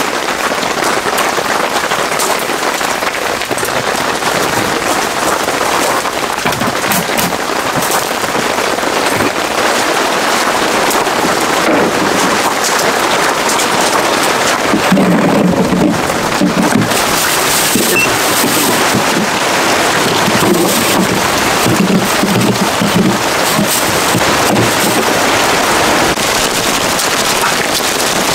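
Heavy rain pelting down in a steady downpour, with a dense patter of sharp individual hits.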